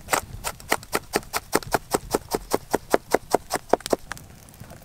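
A knife chopping quickly on a wooden board, dicing onion and garlic: a rapid, even run of sharp taps, about five a second, that stops about four seconds in.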